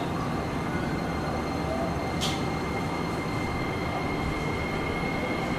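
Cabin sound inside a Nagoya City Subway 6050-series car: a steady rumble and hum with a faint constant high tone. A short hiss of air comes about two seconds in.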